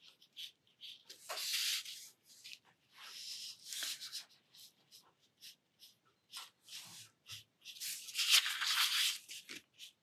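Short scratchy strokes of a fine-tipped pen drawing on textured watercolour paper, with longer rustling slides of the paper sheet. The loudest rustle comes about eight seconds in, as the sheet is turned on the table.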